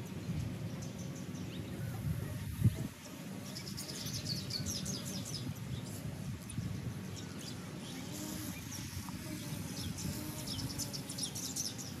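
A flock of birds chirping together in many quick, high chirps that thicken after the first few seconds, over a low background rumble, with a single thump about two and a half seconds in.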